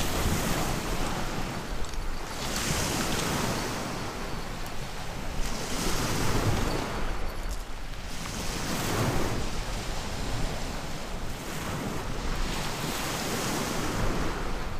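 Sea waves breaking on a pebble beach, the surf swelling and washing back about every three seconds.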